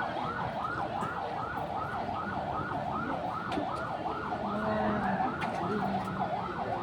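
Electronic siren in a fast yelp, its pitch sweeping rapidly up and down several times a second without a break, sounding as the alarm of an earthquake drill.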